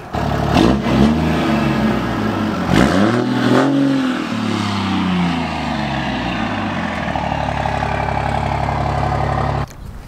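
Diesel pickup engine with a 5-inch straight-pipe exhaust, loud, revving up and down a couple of times in the first few seconds, then settling into a steady idle. The sound cuts off abruptly near the end.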